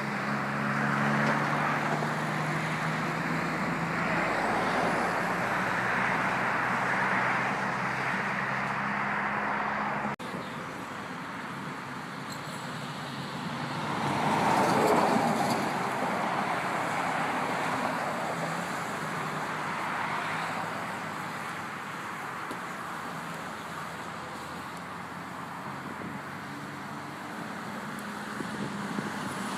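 Highway traffic going by: at first a semi-truck's engine runs with a steady hum as it passes, then after a sudden break the sound turns to tyre and engine noise of passing cars, swelling as one goes by about halfway through.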